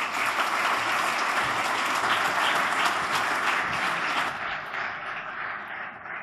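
Audience applauding, many hands clapping together, steady for about four seconds and then dying away.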